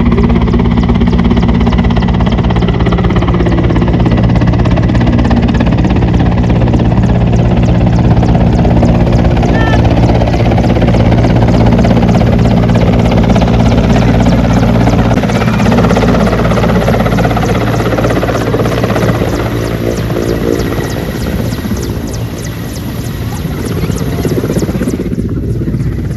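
Helicopter flying in close, its rotor beating loud and steady with a low engine drone, easing off somewhat after about eighteen seconds.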